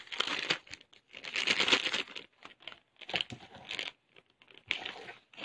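A bag of baking mix crinkling in several short, irregular bursts as it is handled and opened.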